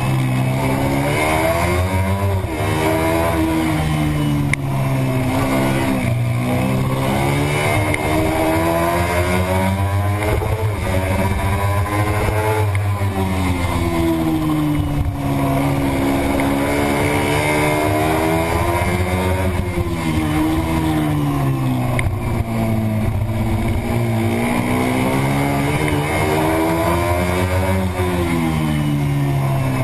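Racing motorcycle engine heard from an onboard camera at race pace. Its revs climb hard and fall away over and over as it is ridden through the corners of a lap.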